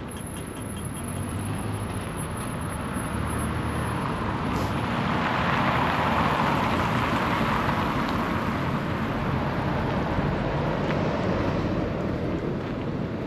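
Road traffic passing on a city street: tyre and engine noise that swells to a peak about halfway through, then eases slightly.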